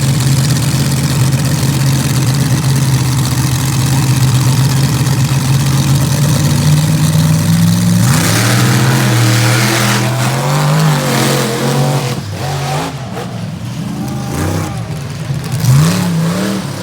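Monster truck engines holding a steady loud drone, the pitch creeping up for about eight seconds. About eight seconds in comes a sudden full-throttle surge as the trucks launch down the track. After that the engine notes swing up and down and drop away as the trucks come off the throttle.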